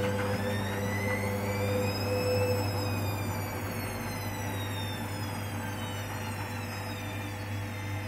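Hoover Dynamic Next washing machine's drum motor whining as it turns the wet, foamy load. The whine rises in pitch over the first couple of seconds, then slowly winds down, over a steady low hum. This is around the end of the cool-down, as the intermediate spins begin after the wash.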